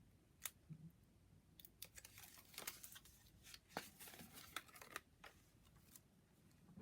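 Faint scattered clicks and rustles of cardstock and tape being handled and pressed into place, busiest in the middle.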